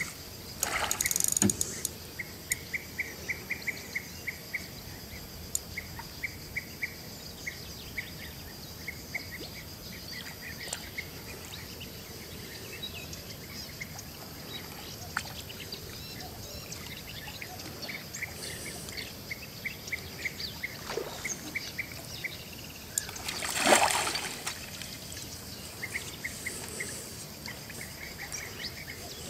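A hooked carp splashing at the surface beside the boat, twice: a short splash about a second in and a louder one a few seconds before the end. Under it, runs of quick, even clicking and a steady high insect whine.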